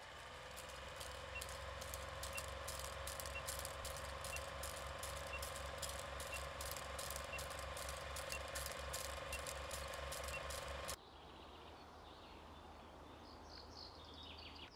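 Old film projector sound effect running under a countdown leader: a steady rattling clatter over a low pulsing hum, with a faint short beep about once a second. It cuts off suddenly about eleven seconds in, leaving faint bird chirps.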